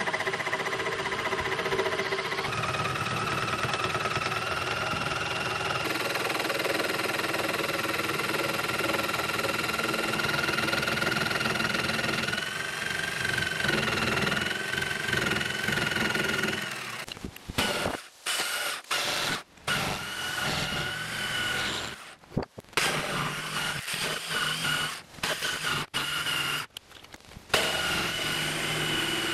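Corded electric jigsaw sawing through a thick wooden slab, its motor running with a steady whine. From a little over halfway through, the sound keeps breaking off abruptly and starting again in short stretches.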